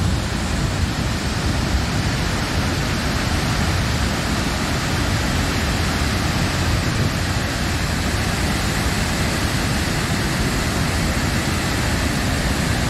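Van der Kloof Dam's spillway releasing floodwater near peak flow, the jets plunging into the gorge below: a steady, loud rush of falling water.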